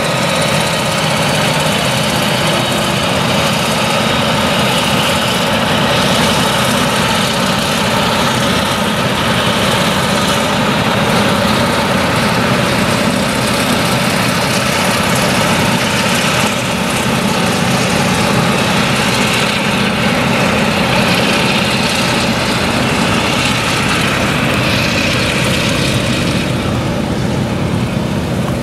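Claas Jaguar 970 forage harvester, with its MAN V8 engine, running under load as it chops sorghum, mixed with the engines of the tractors pulling trailers alongside it: a loud, steady drone of heavy machinery.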